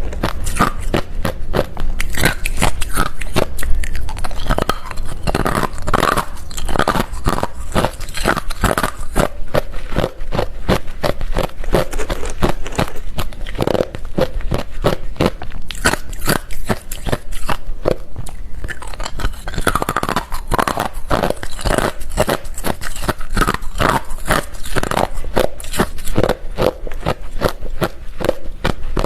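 Close-miked chewing of hard refrozen crushed ice: a continuous rapid run of sharp crunches and cracks as the ice is bitten and ground between the teeth.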